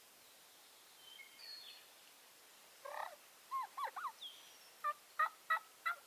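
Wild turkey gobbler gobbling close by: a quick cluster of calls about halfway through, then four short, loud calls near the end.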